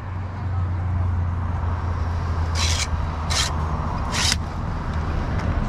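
Handling noise on a handheld phone's microphone: three short rubbing scrapes about a second apart, over a steady low hum.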